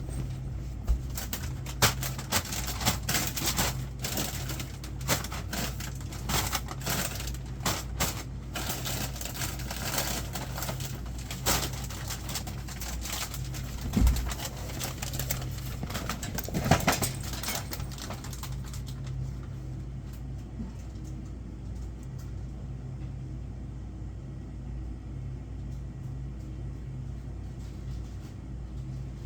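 Goods and packaging being handled while stocking convenience-store shelves: a run of knocks, clicks and rustles for about the first eighteen seconds, over a steady low hum. After the handling stops, only the hum remains.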